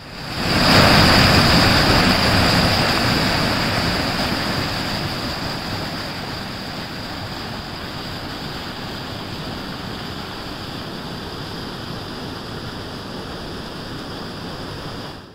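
Storm water gushing from flap-gated outfall pipes into a drainage ditch: a loud, steady rush of falling and churning water with a thin high tone over it. It is loudest in the first couple of seconds, eases over the next few, then holds steady.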